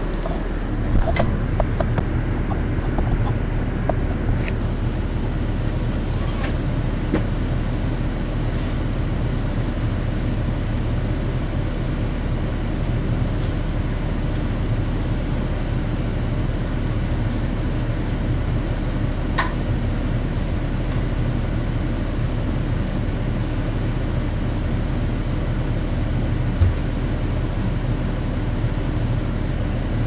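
2009 New Flyer D40LFR transit bus heard from on board, its Cummins ISL diesel engine running with a steady low drone. A few sharp clicks and rattles come in the first several seconds, and there is a single knock near the end.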